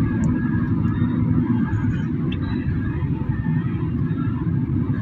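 Steady rumble of road and engine noise inside a moving taxi's cabin.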